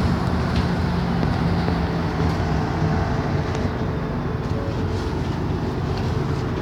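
Bus running along a city street, heard from inside the passenger cabin: a steady engine hum under road and cabin rumble.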